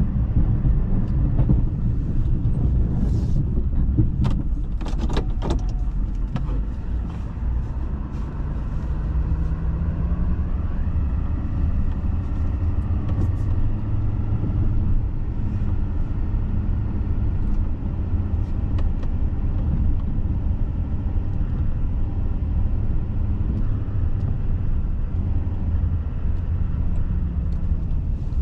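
GMC Denali plow truck running, a steady low rumble of engine and drivetrain, with scattered short clicks and knocks in the first few seconds.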